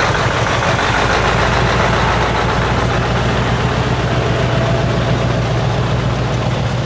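Scania V8 truck engine running steadily at low revs as the truck pulls its trailer slowly past at walking pace.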